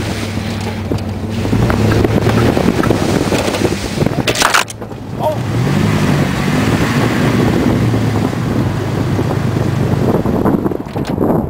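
Vehicle engine running under a wash of wind and trail noise while driving. After a cut a little over four seconds in, a pickup truck's engine, the truck dug into sand, revs up and down as it tries to get unstuck.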